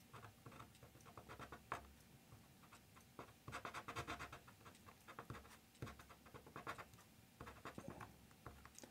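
Faint scratching of a pen nib on paper in short strokes, with a busier run of strokes about three and a half to four and a half seconds in.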